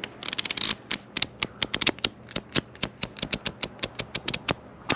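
Paper pages of a small flipbook riffled past a thumb: a rapid run of crisp page flicks, several a second.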